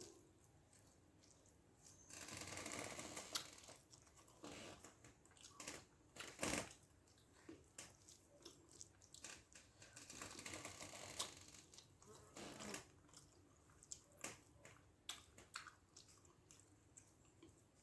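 Close-up eating sounds of a meal of rice with mackerel fish gravy: scattered wet clicks and smacks of chewing, with a few longer rustling stretches of about two seconds.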